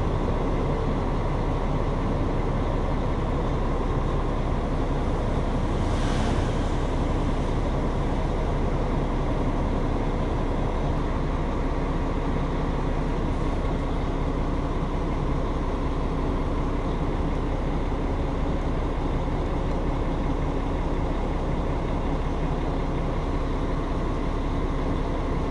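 Articulated bus's engine heard from inside the passenger cabin, running with a steady low drone and hum. A brief hiss sounds about six seconds in.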